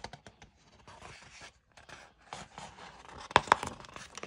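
A picture book's paper page being turned by hand: soft rustling and scraping of the paper, with two sharper flaps about three and a half seconds in.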